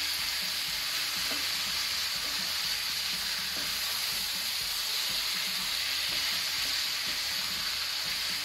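Raw chicken pieces frying over a high flame in a non-stick pan of onion and tomato masala, turned with a wooden spatula: a steady sizzling hiss.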